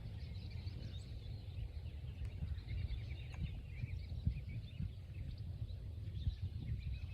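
Small birds chirping and twittering steadily, over a low rumble with a few soft thumps.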